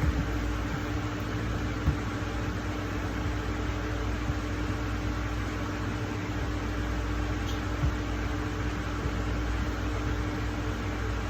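Steady background room noise: an even hiss with a constant low hum, like a fan or air conditioner running. A faint click about two seconds in and another near eight seconds.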